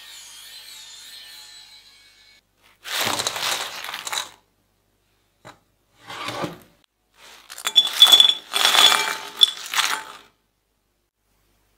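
Faint sizzle of frying oil fading out, then crisp fried French fries tumbling in several bursts into a wire basket and a glass bowl, clattering and clinking against the glass. The loudest pour comes near the end.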